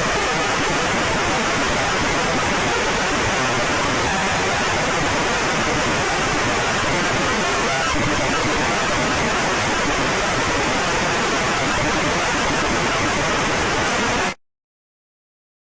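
Steady static hiss, an even white-noise rush with no tone or rhythm, that cuts off suddenly near the end.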